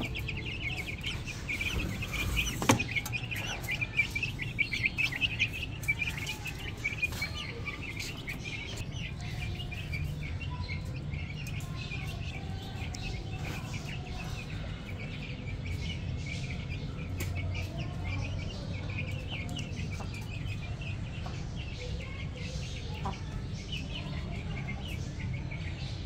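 Shamo Aseel chickens clucking over their feed, with a rapid chatter of small birds chirping that is thick in the first several seconds and thins out after, and scattered light taps of pecking at grain in a clay bowl.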